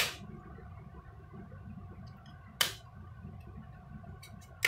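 Plastic clips of a Nokia X2's back frame snapping into place as it is pressed onto the phone: three sharp clicks about two seconds apart, with a few faint ticks just before the last, over faint steady background noise.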